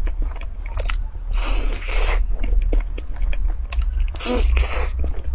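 Close-up mouth sounds of biting into and chewing a soft filled bun, several irregular bites and chews in a row, over a steady low hum.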